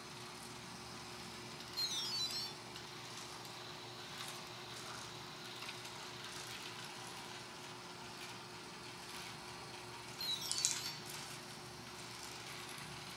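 LEGO Mindstorms robot's speaker playing a short run of high electronic beeps twice, about eight seconds apart, over a faint steady hum.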